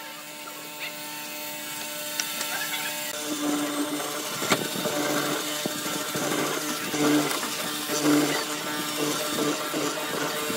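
Hollow chisel mortising machine running, its motor humming while the square chisel is plunged repeatedly into a pine beam. From about three seconds in come several louder cutting strokes, with a sharp click about halfway.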